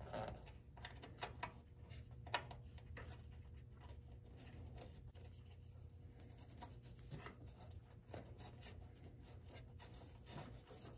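Round file rasping in short, faint, irregular strokes around the edge of a freshly drilled 3/4-inch hole in a truck cab's sheet steel, deburring it so the rubber grommet won't tear.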